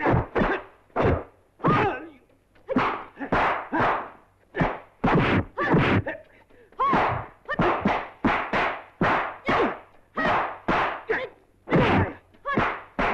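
Punch, kick and block sound effects from a 1970s kung fu film fight: a rapid, uneven string of sharp thwacks, about two a second.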